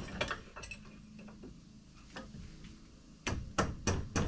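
Light metallic clicks and taps as a split brass bush is worked around a bend in a steel shaft, with a quick run of sharper clicks near the end.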